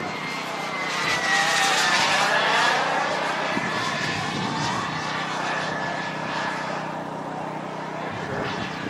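XL Boomerang radio-controlled model turbine jet whining as it flies past. Its high steady whine dips a little in pitch and is loudest a second or two in, then eases off as the jet moves away.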